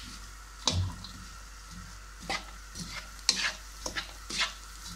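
Black plastic spatula scraping and stirring chopped onions around a wok (karahi) in a little hot oil: a series of short, irregular scrapes, the first with a dull knock against the pan, over a faint sizzle of the onions just starting to fry.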